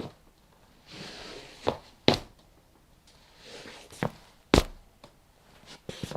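Slow footsteps with the feet dragging. Twice, a sole scrapes along the floor for about half a second and then comes down in a couple of sharp footfalls, with a few lighter taps near the end.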